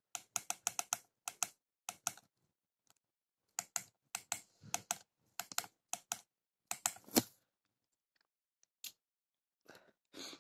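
Keypad buttons of a Satlink WS-6906 handheld satellite finder clicking as the arrow and OK keys are pressed to spell a name on its on-screen keyboard. The clicks come in quick runs of several presses, with a few single presses near the end.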